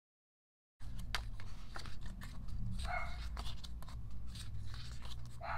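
Album pages and packaging being handled, with light taps and rustles, and a dog barking briefly twice in the background. The sound cuts in abruptly about a second in, after digital silence.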